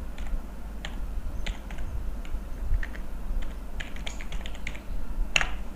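Typing on a computer keyboard: a quick, irregular string of key clicks as a word is typed, with one louder click near the end, over a low steady hum.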